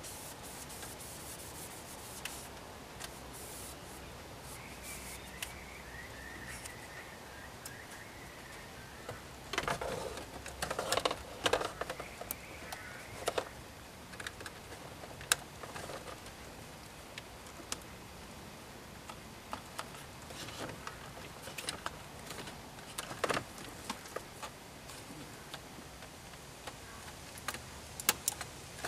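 Plastic dashboard trim clicking and rattling as the instrument cluster surround is pressed and snapped into place, with a burst of knocks and rattles about ten seconds in and single sharp clicks after it.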